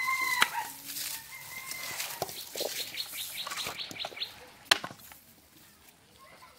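The end of a rooster's crow at the start and another drawn-out call a little later, then a quick run of high chirps, about eight a second, around the middle. Dry straw rustles, with a sharp knock about two-thirds of the way through.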